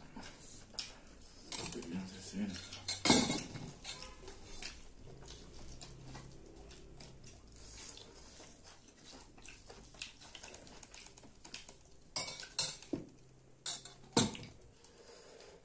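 Steel ladles and spoons clinking and scraping against stainless steel serving bowls and plates as curry is served and a meal is eaten. There are scattered light clinks, with louder clanks about 3 s in and a cluster near the end.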